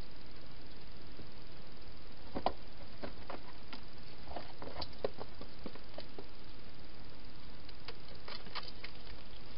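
Wild hedgehog eating from bowls and moving about inside a plastic feeding box: scattered short clicks and crunches, in two clusters, over a steady hiss.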